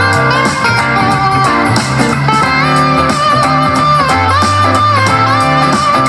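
Guitar-led music with a bass line and a steady beat, played back at 75% volume through a JBL Horizon 2 Bluetooth clock-radio speaker.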